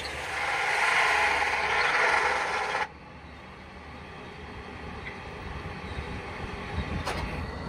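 Wood lathe spinning a wooden hotpot lid while a turning tool scrapes the wood, making a loud hiss for nearly three seconds that cuts off abruptly. The lathe then runs on at a quieter, steady low hum, with a single sharp click near the end.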